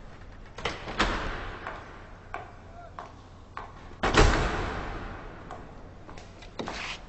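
High-heeled shoes clicking on a hard floor in an echoing room, at an uneven walking pace. Two louder knocks with long echoes stand out, about one second and four seconds in.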